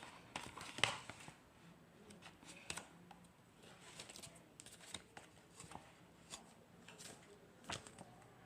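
Blu-ray box and its packaging being handled: faint, irregular rustles and small clicks, the loudest about a second in and again near the end.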